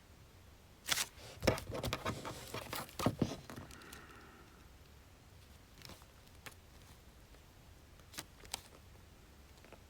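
Paper and stationery handled at a study desk: a couple of seconds of rustling, scratching and small knocks about a second in, then a few light taps.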